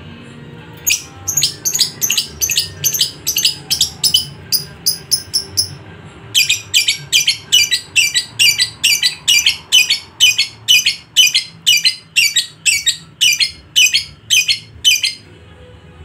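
Lovebird giving a long ngekek chatter: a rapid string of sharp, high-pitched calls at about three a second. It starts about a second in, breaks off briefly near six seconds, then runs on until shortly before the end. This long, unbroken ngekek is the call keepers prize in a bird in full song (gacor).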